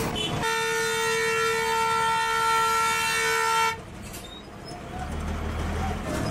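A vehicle horn sounds one long, steady blast of about three seconds on a single pitch, then cuts off abruptly, leaving the street traffic noise.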